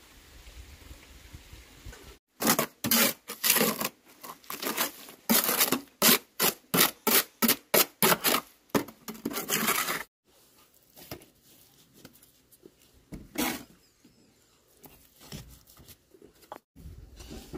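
Rhythmic scraping strokes, about two a second for some eight seconds, then a few scattered scrapes.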